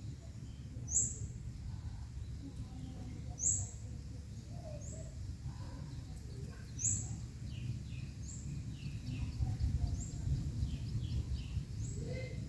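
Small birds chirping: short, sharp, high chirps every second or two, coming more often in the second half, with softer, lower chirps between them, over a steady low rumble.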